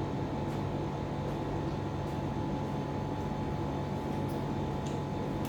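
Steady low mechanical hum with a faint thin higher tone over it, broken only by a few faint ticks.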